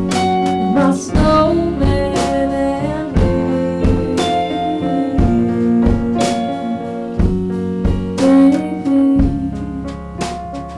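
Jazz combo playing an instrumental holiday tune: sustained chords and melody notes over a slow beat with a drum strike about once a second.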